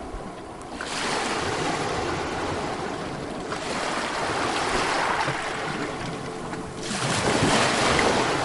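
Sea waves breaking and washing up a beach, three surges about three seconds apart, the last one the loudest.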